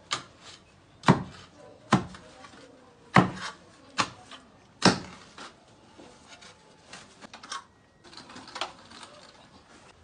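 A wooden stick jabbed into the soil of a planting hole, knocking sharply six times about a second apart, then fainter ticks and rustling.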